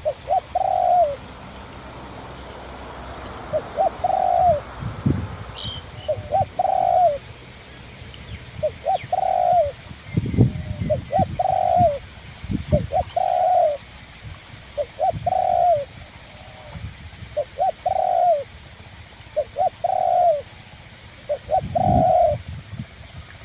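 A spotted dove cooing: a short phrase of several notes repeated about every two seconds. Dull low thumps come and go underneath, several of them around the middle and one near the end.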